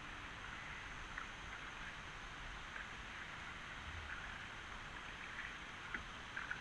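Faint kayak paddle strokes on calm water: a few soft splashes and drips from the paddle blade, scattered irregularly over a steady hiss.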